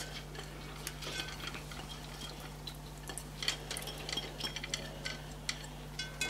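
Washed yellow moong lentils being tipped by hand into a metal cooking pot: faint, scattered small ticks and soft pattering as the grains land, over a steady low hum.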